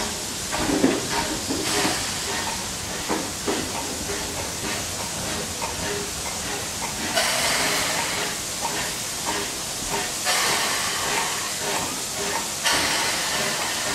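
USATC S160 2-8-0 steam locomotive running slowly tender-first past the platform, with knocks and clanks at first. From about halfway come three long hisses of steam.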